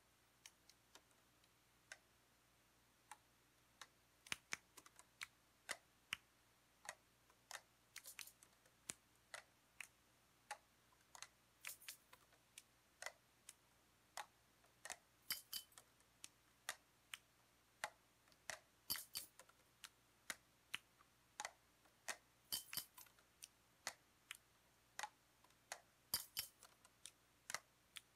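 Improvised percussion of sharp clicks and taps on everyday objects, sparse at first and then coming faster and more densely. A brighter, higher cluster of clicks returns about every three and a half seconds, giving a repeating rhythm.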